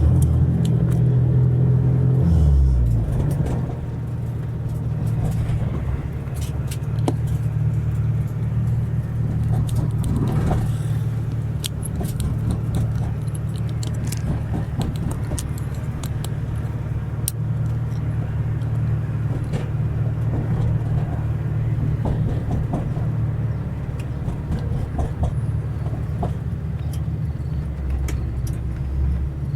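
A car's engine and road noise make a steady low drone. The engine note falls over the first two to three seconds as the car eases off, and light clicks and rattles come through now and then.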